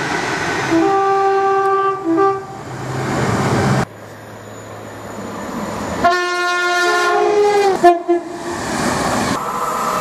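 Two-tone train horns in separate clips: short two-note blasts about a second in, then a louder, longer two-tone blast from about six seconds, high note then low, as a CrossCountry Voyager diesel unit approaches. Train running noise lies under the horns.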